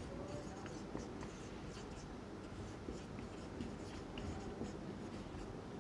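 Marker pen writing on a whiteboard: faint, short strokes as a word is written out and underlined.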